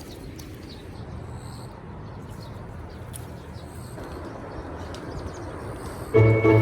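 Outdoor ambience: a low steady rumble with faint, scattered bird chirps. Near the end, music with bell-like chimes starts suddenly and is much louder.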